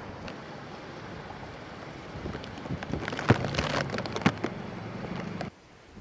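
Strong hurricane wind gusting with rain, buffeting the microphone, with a few sharp knocks in the middle. The sound drops away suddenly shortly before the end.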